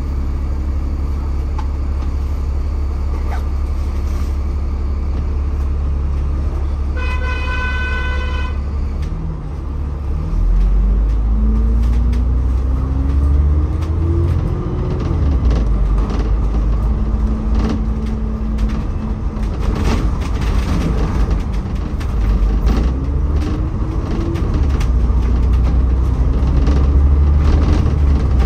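Bus engine rumbling steadily, heard from on board. About seven seconds in, a horn sounds once for about a second and a half. Then the engine pulls away louder, its pitch climbing, dropping at a gear change and climbing again.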